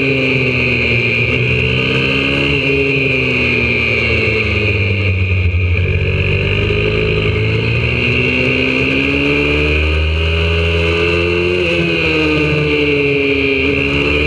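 Single-cylinder four-stroke engine of a YCF 125cc pit bike, heard from onboard while riding a track. Its pitch falls over the first few seconds, climbs steadily from about halfway, drops suddenly near the end and climbs again.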